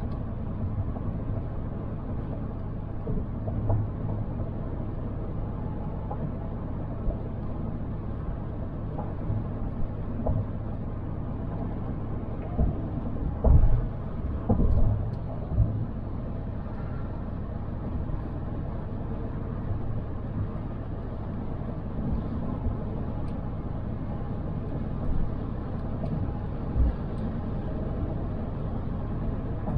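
Steady low rumble of a car being driven, with a few short low thumps, the loudest about halfway through.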